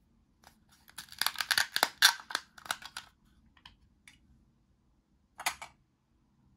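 Velcro ripping as the two halves of a plastic toy corn cob are pulled apart: a dense crackle lasting about two seconds, then a short second crackle near the end.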